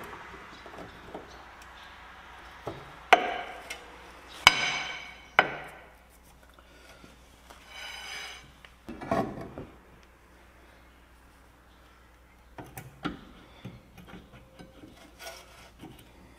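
Sharp metal clicks and clinks as new brake pads are pushed into the caliper bracket of a 2016 Ford Flex's rear disc brake, one with a short metallic ring. Next comes a rag rubbing across the rotor face, then lighter knocks as the windback parking-brake caliper is fitted over the pads.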